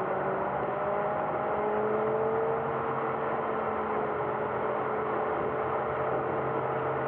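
Car driving along a road, heard from inside: a steady rush of engine and tyre noise with a faint hum whose pitch rises slowly.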